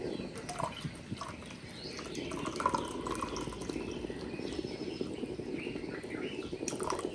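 Dawn chorus: many birds chirping and calling over a dense, steady background chorus.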